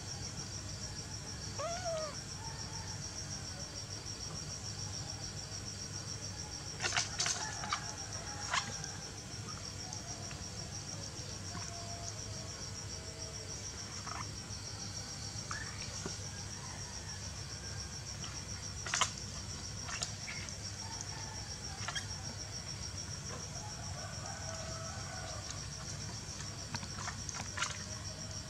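A handful of sharp taps and clicks on a plastic basin as a cat paws at a crab, scattered through, over a steady high-pitched pulsing trill in the background.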